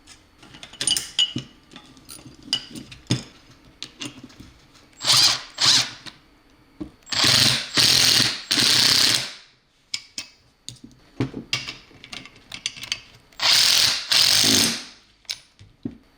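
Hand ratchet wrench clicking as it runs nylon lock nuts down onto mounting bolts, in three spells of a second or two each. Light metallic clinks and knocks from washers, nuts and tools come in between.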